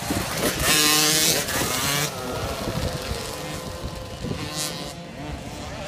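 Small motocross bike engine revving hard as it jumps past close by, loudest in the first two seconds and then dropping away. Other motocross bikes run further off for the rest of the time.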